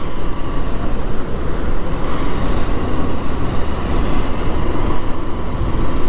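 Steady rush of wind and road noise from a small motorcycle on the move, a continuous low rumble with no breaks.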